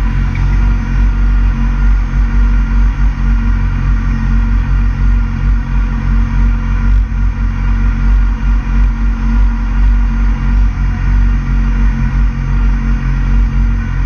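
Suzuki GSX-R 600's inline-four engine idling steadily with a low rumble.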